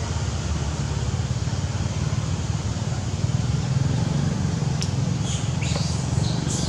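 Steady low rumble of road traffic, with a few short, high chirps near the end.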